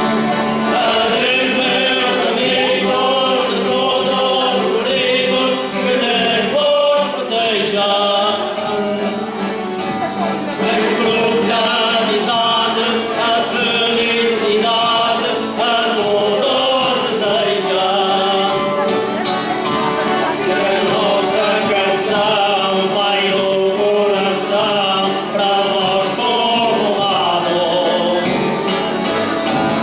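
A folioes group singing together to accordion and plucked guitar accompaniment: a traditional song of the Portuguese Holy Spirit festival.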